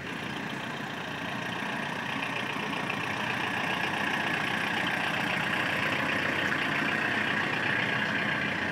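Ambulance van's engine running as it pulls away and drives slowly past close by, growing gradually louder.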